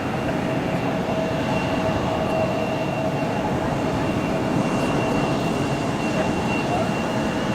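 SIAI-Marchetti SF-600 Canguro's engines running steadily, a constant whine held at one pitch over a broad rushing noise.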